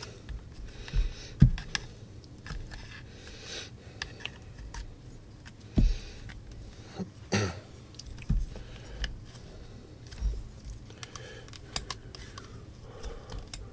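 Handling noise from working inside an opened JBL Flip 4 speaker with metal tweezers: scattered light clicks, taps and rubbing of the plastic housing and its wires, with a few louder knocks.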